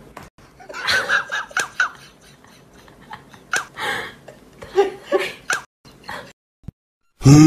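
Several short bursts of giggling and laughter, then a brief silence, and music starting abruptly near the end.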